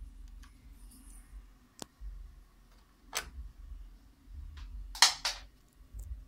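Handling noise with music switched off: a low rumble and a handful of sharp clicks and taps, the loudest a quick double click about five seconds in.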